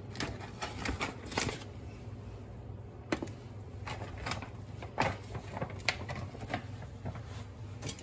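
Scattered light clicks and taps of crab shell pieces knocking against a pan of simmering broth as they go in, a few a second and irregular, over a steady low hum.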